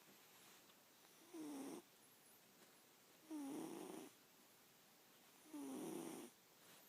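Sleeping cat snoring: three snores about two seconds apart, each lasting under a second.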